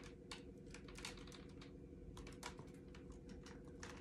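Faint, irregular light clicks and ticks from a hardcover picture book being held and shifted close to the microphone, over a low steady hum.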